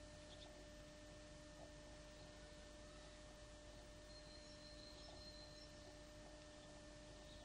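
Near silence: a faint steady hum of a few held tones over light hiss, with faint high chirps about four to five seconds in.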